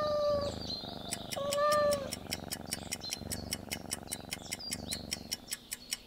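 Domestic cat meowing twice, once at the start and again about a second and a half in, over a low purr. Fast ticking of a countdown clock runs through the rest.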